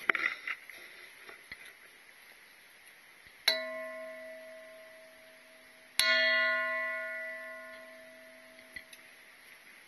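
A metal bell struck twice, about two and a half seconds apart. Each strike rings out with several steady tones and fades over a few seconds, and the second is the louder.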